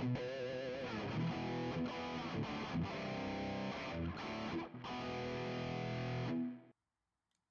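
Electric guitar played through a Valeton GP-5 multi-effects pedal with a distorted tone, with a wavering vibrato on a held note about a second in. The playing stops suddenly near the end, leaving silence.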